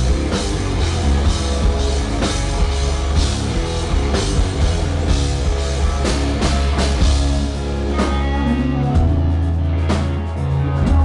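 Rock band playing live and loud: a drum kit keeping a steady beat over guitars and heavy bass.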